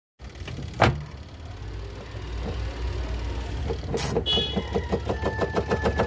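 Samsung 7.2 kg twin-tub washing machine's spin tub running with a low hum, a sharp click about a second in, then from about four seconds in a rapid knocking rattle that speeds up. The rattle comes from the spin tub running off balance because the clothes inside are not evenly placed.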